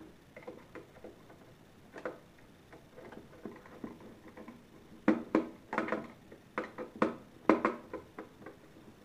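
Screwdriver turning a terminal screw on a plastic-cased digital electricity sub meter, clamping a wire into its free terminal. Faint scattered clicks at first, then louder, irregular clicks and knocks several a second from about five seconds in.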